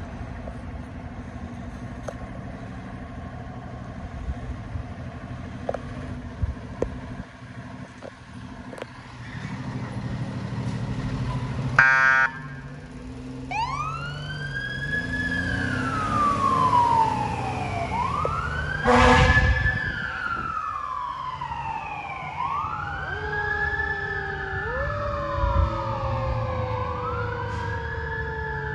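A fire engine's diesel engine running as the 2020 E-One Typhoon pumper pulls out, then a short air-horn blast about 12 seconds in and its siren starting up, wailing up and down in repeated sweeps. A longer horn blast comes about 19 seconds in, and later a second, lower siren tone falls slowly beneath the wail.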